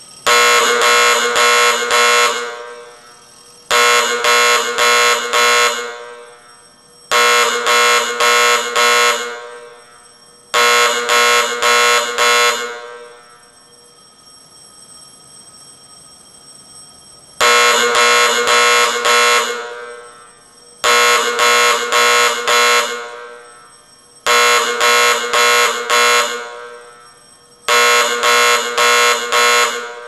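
Original fire alarm of a 1929 school sounding in a coded pattern. Loud two-second bursts of four quick pulses each, every burst trailing off in a ringing tail. Four bursts about three and a half seconds apart, a pause of about five seconds, then four more.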